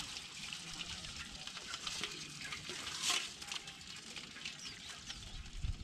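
Shallow water splashing and dripping lightly as hands work in it, over a fine crackling patter, with a few sharp clicks, the clearest just after three seconds in.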